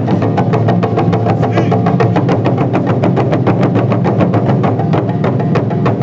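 Music driven by fast, even drum strikes, about five a second, over a steady low bass.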